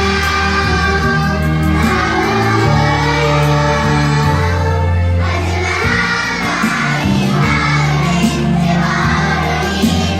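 Children singing together over a recorded backing track with a steady bass line.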